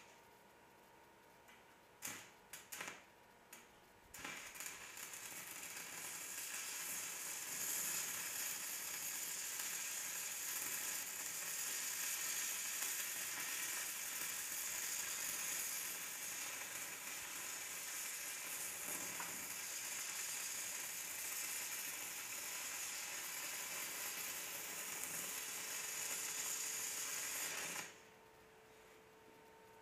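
Stick-welding arc of a 3/32-inch 6010 electrode on mild steel plate at 80 A DCEP, running steadily for about twenty-three seconds after a few sharp clicks and cutting off abruptly near the end as the arc is broken.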